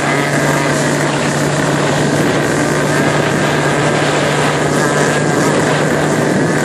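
A motorboat running steadily at speed: an even engine hum under the rush of water and wind past the hull.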